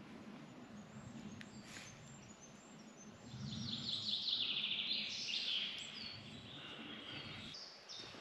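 Small songbirds singing in woodland, with a fast high trill about three seconds in that is the loudest part, over a soft low rustle that stops near the end.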